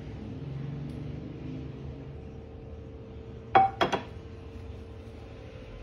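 Three quick clinks of kitchenware close together, about three and a half seconds in, over a faint steady hum.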